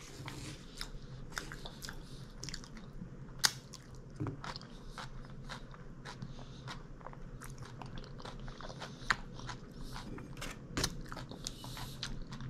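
A person chewing a mouthful of food close to the microphone, with irregular crunchy bites and wet mouth clicks.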